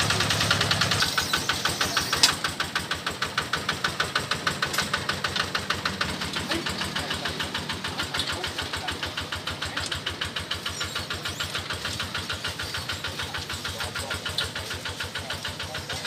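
Kubota 11.5 HP single-cylinder diesel engine of a small tracked rice combine harvester, running with a steady chug of evenly spaced firing beats. It is louder and fuller for the first second, then settles a little lower. A single sharp clack comes about two seconds in.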